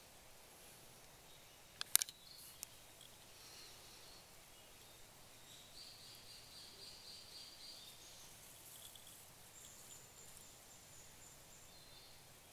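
Faint woodland ambience with thin, high, steady calls held for a couple of seconds at a time, and a quick cluster of sharp clicks about two seconds in.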